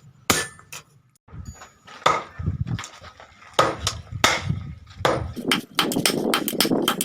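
Hammer blows on the steel of a chainsaw guide bar being forged into a knife: a few separate strikes, then from about five seconds in a fast, steady run of blows, about five a second.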